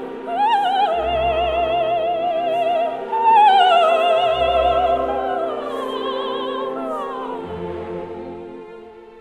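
Operatic singing in a high voice with wide vibrato over quieter instrumental accompaniment. The voice comes in just after the start on a long held note, leaps higher about three seconds in, then glides down and fades away near the end.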